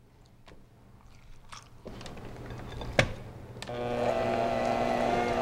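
Soft wet sounds of canned pumpkin puree being emptied into a bowl, a single sharp knock about three seconds in, then an electric hand mixer switches on and runs at a steady pitch, its beaters working through cream cheese, powdered sugar and pumpkin.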